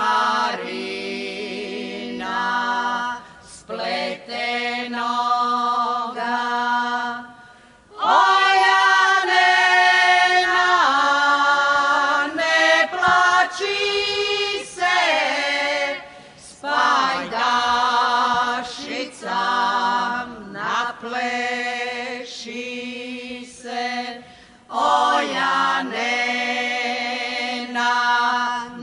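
Women's vocal group singing a folk song a cappella, in sustained phrases with short breaks for breath; the loudest phrase begins about eight seconds in.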